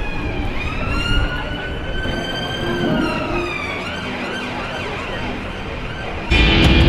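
Emergency vehicle siren sweeping slowly up and then down once over street traffic noise. Near the end, loud rock music cuts in suddenly.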